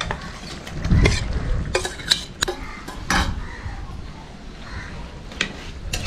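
Squid pieces tipped and scraped out of a steel bowl into a pan of simmering masala, then stirred with a steel spatula: a series of sharp metal clinks and scrapes against the pan, the loudest with a dull thud about a second in.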